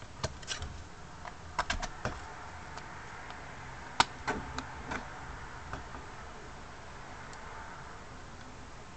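A few small, scattered clicks and taps from handling a Zippo lighter insert while its flint-spring screw is unscrewed, the sharpest about four seconds in.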